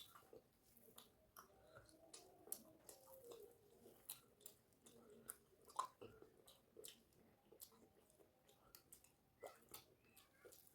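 A person chewing a rice-and-fish-curry meal: faint, irregular wet mouth clicks and smacks.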